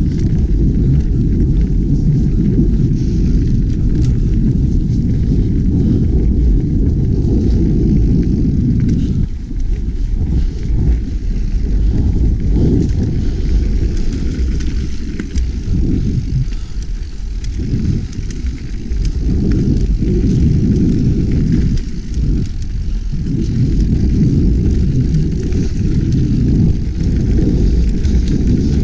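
Heavy low wind rumble buffeting a GoPro Hero 5's microphone on a fast mountain-bike descent over dirt singletrack, mixed with tyre roll and scattered knocks and rattles from a 2017 Specialized Stumpjumper over the bumps. It eases a little for a few seconds about a third of the way in and again past halfway.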